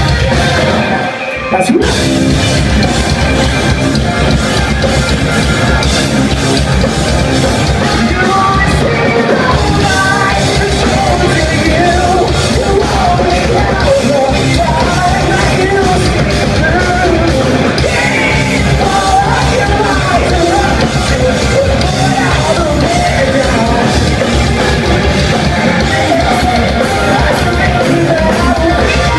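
Rock band playing live at full volume, drums and vocals over the band, with a brief break about a second in before the whole band comes back in.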